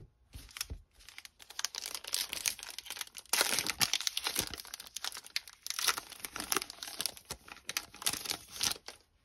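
Wrapper of a Topps Heritage baseball card pack being torn open and crinkled by hand: a run of quick, irregular crackles that builds from about a second in, grows louder past the three-second mark and stops just before the end.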